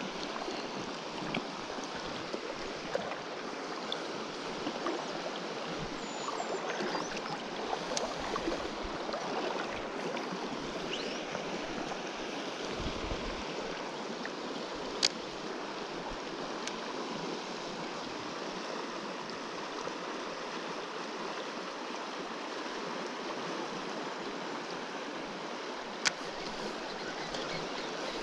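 Shallow river current running over a gravel bed, a steady rushing wash of water. Two short sharp clicks stand out, one about halfway through and one near the end.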